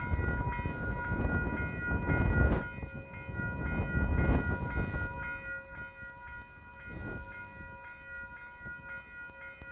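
Level crossing warning bells ringing steadily while the crossing is active, signalling an approaching train. A heavy low rumble underneath peaks twice and dies away about five seconds in.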